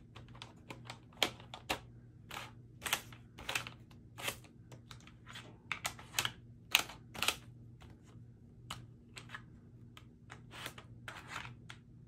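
Small plastic diamond-painting drill containers being handled in their storage case: irregular sharp clicks and taps as lids snap shut and containers are set in place. A faint steady low hum runs underneath.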